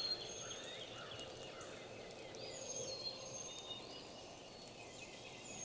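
Several songbirds singing and calling faintly: short, thin, high whistled notes, one of them repeating about every three seconds, over scattered smaller chirps.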